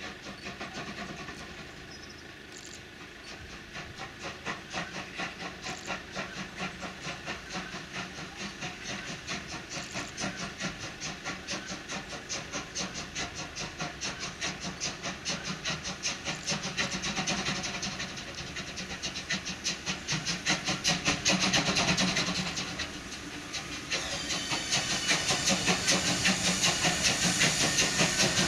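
Three-cylinder express steam locomotive 01 1104 pulling away with its train, its exhaust beats coming in a quick, even rhythm and growing louder as it approaches. In the last few seconds a loud hiss of steam escaping beside the cylinders joins the beats.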